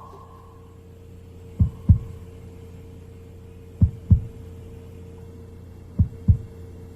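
Heartbeat sound effect: three slow double thumps, lub-dub, about two seconds apart, over a steady low hum.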